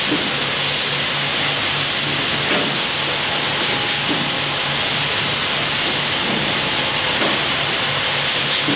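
Steady din of sawmill machinery at a McDonough horizontal resaw's automated infeed, as conveyors and rollers carry wooden cants. A hiss runs through it, with a low hum pulsing about four times a second.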